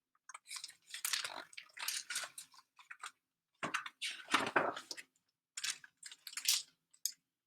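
Paper rustling and crinkling in short irregular bursts: the pages of a picture book being handled and turned.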